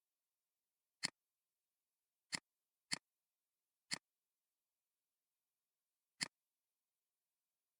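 Computer mouse clicking five times at irregular intervals, each a short sharp click.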